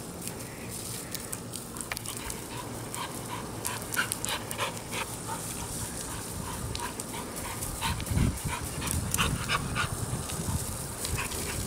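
Vizsla dog panting and snapping at the spray from a garden hose, over the steady hiss and splatter of the water, with many short sharp splats and clicks. A low rumble comes in about eight seconds in.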